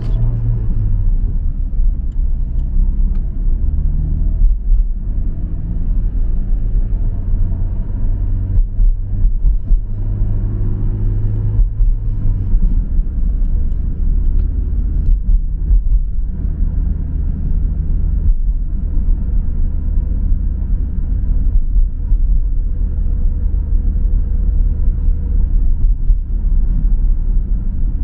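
Car cabin while driving: a steady low engine and road rumble heard from inside, with the engine note shifting now and then as the car speeds up and slows.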